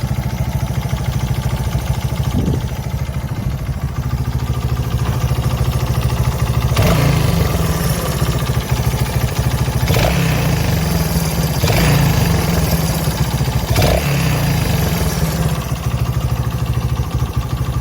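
Honda XL125S single-cylinder four-stroke motorcycle engine running at idle, with several short blips of the throttle in the second half.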